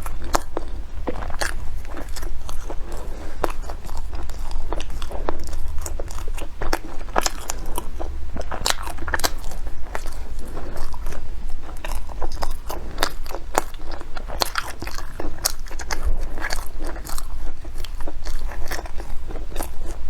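Close-miked eating: a person bites and chews a soft cream-filled bread bun, with many small irregular crackles and smacks, over a steady low hum.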